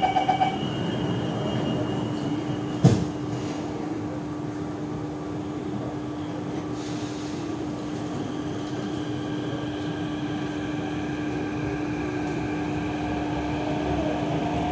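A CT251 metro train departs a station. The door-closing beeps end, the doors shut with a single thump about three seconds in, and the train pulls away with a steady hum and running noise. A faint motor whine comes in and grows as it gathers speed.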